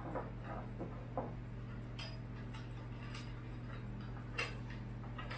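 Irregular light metal clicks and ticks as a hex key and small screws are worked into a drag-chain bracket on a CNC router's frame, the sharpest about a second in and again past four seconds, over a steady low hum.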